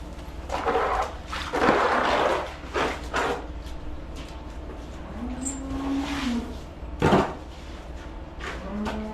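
Dairy cows mooing: one long moo about five seconds in and another beginning near the end. Before it come several loud, rushing noisy bursts, and a sharp knock sounds about seven seconds in.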